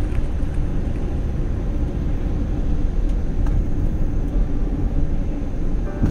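Steady low rumble of a car driving on a rain-wet road: tyre and road noise mixed with the engine.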